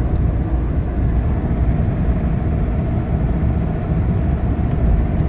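Steady low rumble of a GAZelle Next light truck driving at road speed, heard inside the cab: its Cummins 2.8 diesel, the tyres and the wind run together as one even drone.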